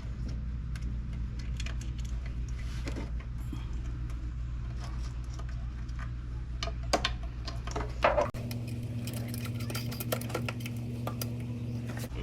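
Light metallic clinks and knocks of tools and car parts being handled, over a steady low hum that shifts in pitch about eight seconds in.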